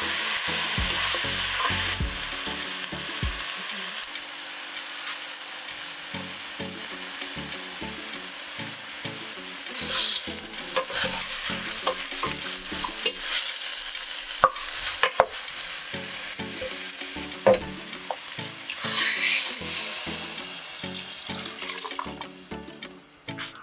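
Chicken pieces sizzling as they sear in oil with onion, garlic and ginger in a stainless steel pot, with a wooden spoon stirring and knocking against the pot now and then. Near the end water is poured into the pot.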